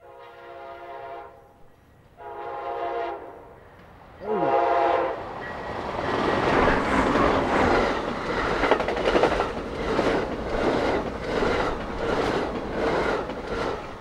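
Amtrak Coast Starlight passing at about 80 mph: the locomotive's horn gives three blasts, the last dropping in pitch as the engine goes by, then the Superliner bi-level cars rush past with a steady rumble and a regular clickety-clack of the wheels, a little under two beats a second.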